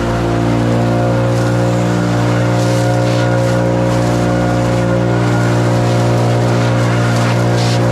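Small engine running steadily at high, constant speed with an even, unchanging pitch.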